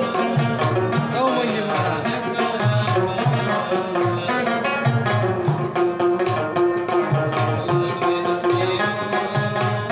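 A rubab being plucked in a quick melody, its many strings ringing together, over a steady drum beat.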